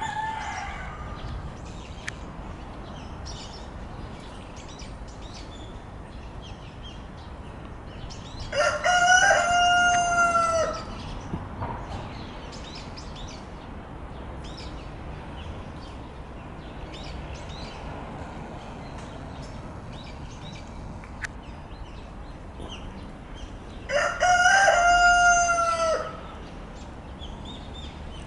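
A rooster crowing twice, about fifteen seconds apart, each a long cock-a-doodle-doo of about two seconds, over a steady low background noise.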